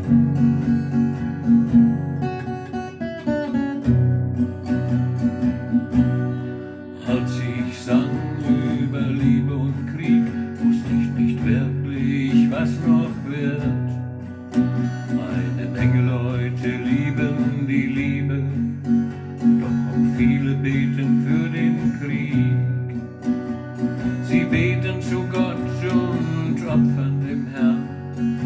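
Acoustic guitar strummed in a steady rhythm through an instrumental passage, with a higher melody line joining about seven seconds in.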